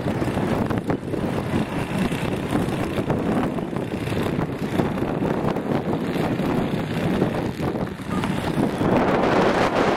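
Stormy gusting wind buffeting the microphone, a rough rumbling rush that swells and dips, strongest near the end.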